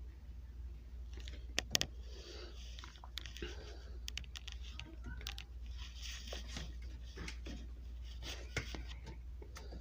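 Faint, indistinct voices with scattered clicks and knocks over a steady low hum.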